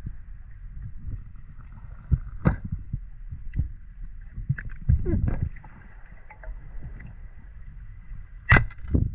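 Water sloshing and gurgling over a low rumble, with several sharp knocks; the loudest comes near the end.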